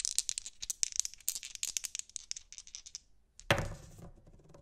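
Dice-rolling sound effect: a fast run of rattling clicks for about three seconds, then a single louder knock as the dice come to rest.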